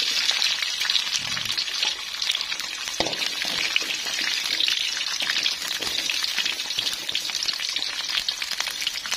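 Whole garlic cloves and small shallots sizzling steadily in hot oil in a metal wok, with a fine crackle, being sautéed until soft while a metal spoon stirs them.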